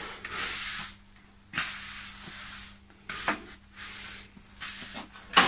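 Push broom sweeping sawdust across a concrete floor: a series of separate scraping strokes of the bristles, then a sharp knock near the end.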